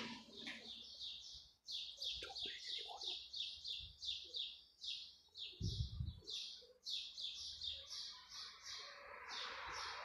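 A small bird chirping over and over in short, high notes, about three a second, starting nearly two seconds in. There is a brief low thump about six seconds in.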